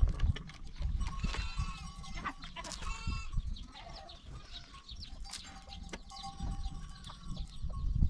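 Livestock bleating in the background, two calls in the first few seconds, with a few light knocks.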